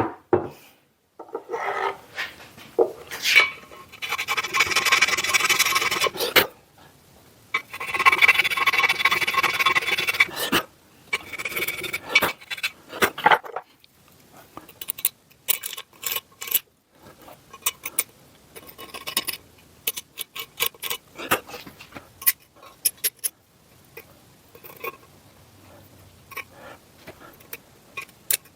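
Scraping work on a raised letter of a cast drill press head, thinning it down: two long rasping scrapes of a few seconds each, with shorter ones around them. After that comes a run of small clicks and taps.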